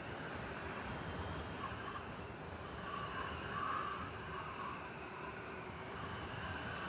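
City blizzard ambience: steady wind-driven snowstorm noise over a low rumble of city traffic, swelling a little about halfway through.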